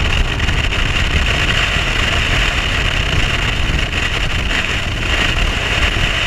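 Bass boat running at speed with its Mercury OptiMax 150 outboard under way: a steady rush of wind and water over a low rumble.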